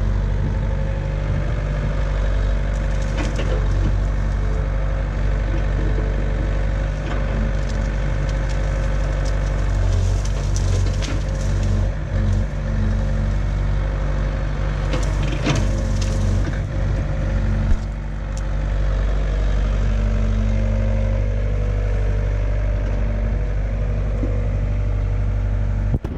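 Caterpillar tracked excavator's diesel engine running steadily under load as the boom pushes into a bamboo clump, with bamboo stalks cracking and splintering several times, the sharpest cracks about ten and fifteen seconds in.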